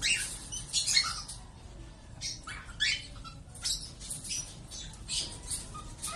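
Lovebirds chirping and squawking: many short, shrill, high-pitched calls, irregular and overlapping.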